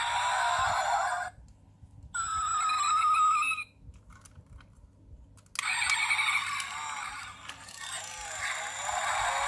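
Sound effects from the built-in sound chip of a 1:22 scale diecast Ferrari LaFerrari Aperta model car, played through its tiny speaker: thin, with no bass. It plays in short clips, with silent gaps about a second in and from about four to five and a half seconds in, and a held steady tone around three seconds in.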